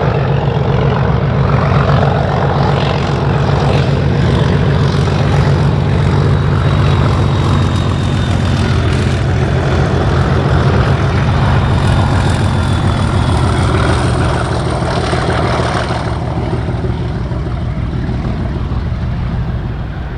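Two Class 37 diesel locomotives running in multiple, their English Electric V12 engines making a loud, steady, deep drone as they pass. A faint high whistle sits over the engines for a few seconds in the middle. The sound fades as the locomotives draw away over the last few seconds.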